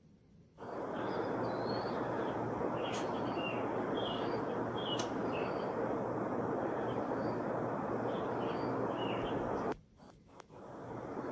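Steady outdoor background noise with small birds chirping again and again, and two sharp clicks about three and five seconds in. The sound cuts out briefly at the start and again near the end.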